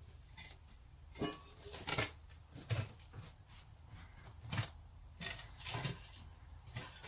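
Steel charcoal retort canister being tipped off its burn box and turned over by hand: a string of about eight metal knocks and scrapes.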